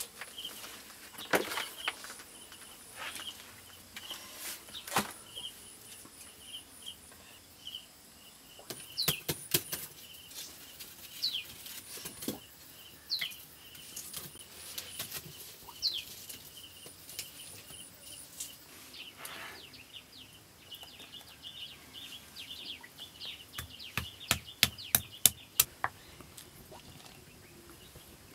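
Birds chirping, with short falling whistle notes and a steady pulsing chirp behind them, over scattered sharp knocks and clicks of kitchen work. Near the end comes a quick run of loud clicks.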